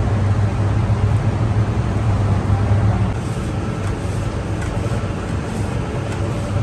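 Large bakery dough mixer running, a steady motor hum as the hook churns wet bread dough in the steel bowl. It gets slightly quieter about three seconds in.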